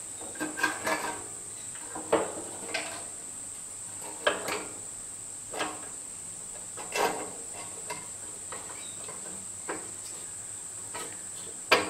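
Scattered metal knocks and clunks from a small gas barbecue's sheet-metal firebox and control panel as a new stainless-steel burner is worked into place by hand, with a sharper knock near the end. A steady high-pitched chirring runs underneath.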